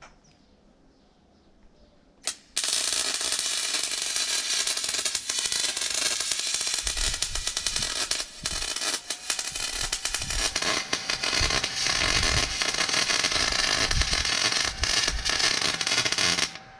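MIG welder laying a bead on steel chassis tubing with half-argon, half-CO2 shielding gas. A brief blip comes first, then a steady sizzling crackle from about two and a half seconds in, with a few short breaks, stopping abruptly just before the end.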